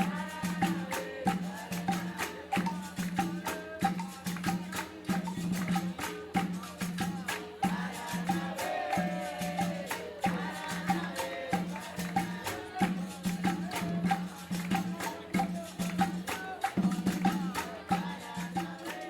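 Capoeira roda music: shaken rattle and tambourine-like percussion keeping a steady, driving beat over a pulsing low tone, with voices singing over it.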